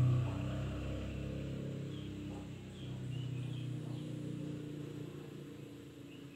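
A motor vehicle's engine hum that fades steadily away, with a few faint short bird chirps in the first half.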